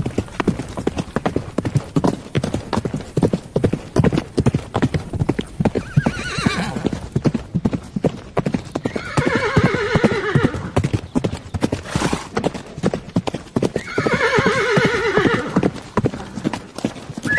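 Horse hooves clip-clopping steadily at a walk, with the horse neighing several times: a short call about six seconds in, then two long, wavering neighs in the middle and near the end.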